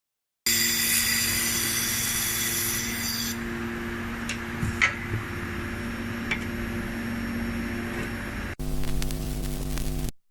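Laser welding machine running with a steady electric hum, a high whine over it for the first few seconds and a few sharp ticks midway; it cuts abruptly to a different, deeper hum for the last second and a half.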